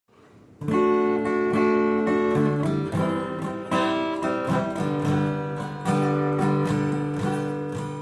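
Acoustic guitar strumming chords in D major, starting about half a second in, with the chords ringing on and changing every second or two.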